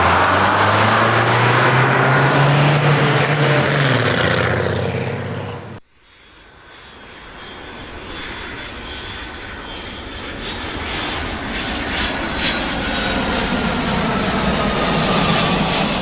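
A heavy road vehicle's engine running, its pitch rising and then falling, cut off abruptly about six seconds in. An airplane's engines follow, growing steadily louder, with a high whine that slowly falls in pitch.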